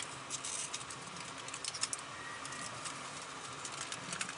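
Irregular small clicks and taps from hands handling a foam-board RC wing while a servo is pressed into its glued slot.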